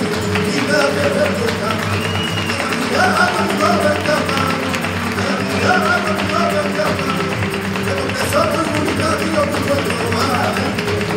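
Live flamenco soleá: acoustic flamenco guitar with a man's wavering sung voice, hand-clapping (palmas) and the dancer's footwork taps, with quick clicks throughout.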